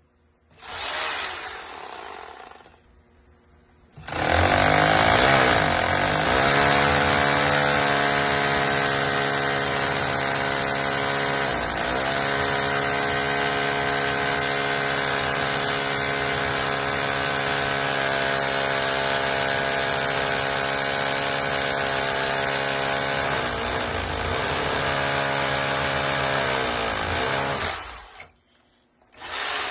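Electric hammer drill boring into a concrete-block wall: a short burst, then about 24 seconds of continuous drilling. The motor's pitch dips briefly several times before it stops abruptly.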